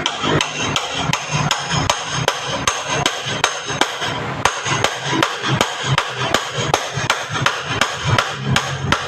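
Steady hammering, about four blows a second, each strike leaving a short ringing note, with a brief pause about four seconds in.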